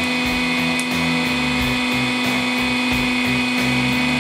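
Hydraulic press pump and motor running with a steady whine as the press's ram lifts off the crushed firecrackers.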